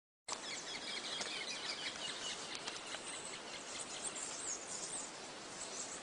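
Outdoor natural ambience: many short bird chirps and calls over a steady background hiss.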